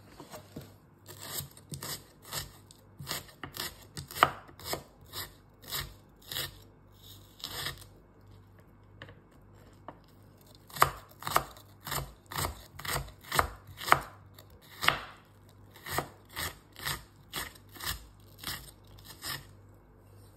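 Kitchen knife chopping a red onion finely on a wooden cutting board: a steady run of knocks, about two a second, with a pause of a couple of seconds about eight seconds in.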